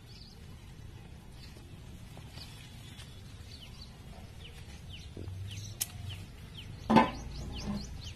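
Small birds chirping: a run of short, high, falling chirps, several a second, over a low steady background. A single sharp knock comes about seven seconds in.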